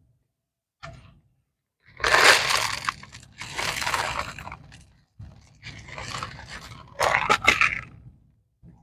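Coarse granular bonsai soil being poured into a small plastic pot, gritty crunching and rattling in four bursts, with a few sharp clicks in the last one.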